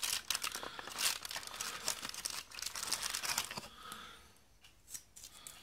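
Crinkling and light tearing of a cardboard advent calendar and its foil as fingers pry at an open door. The sound is dense for about the first three and a half seconds, then dies down to faint handling.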